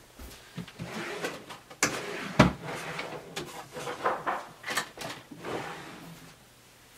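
Rummaging: small objects being handled and set down, a series of clicks, rustles and sharp knocks, the loudest about two and a half seconds in.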